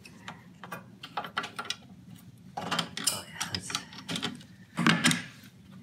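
Knipex pliers working a spark plug loose and out of a snow blower's small engine: a run of light metal clicks and clinks, with a louder clank about five seconds in.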